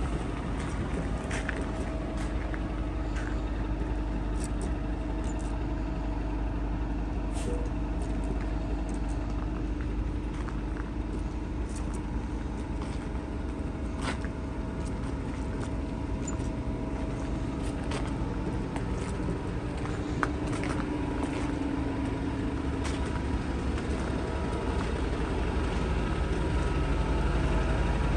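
Steady low rumble and hum of a large vehicle running close by, with a few faint clicks; it grows a little louder near the end.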